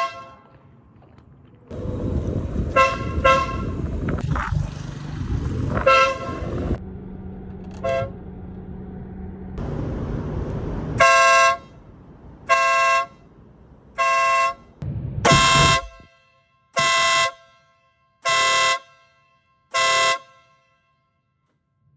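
Stebel Nautilus electric air horn sounding in short blasts. A few scattered toots come over a steady rumble in the first half, then seven evenly spaced blasts of about half a second each follow, roughly one every one and a half seconds.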